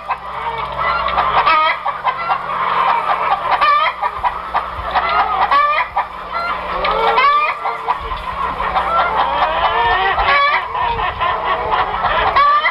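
A flock of birds calling over one another without pause: many short clucks and honking calls overlapping, with a steady low hum underneath.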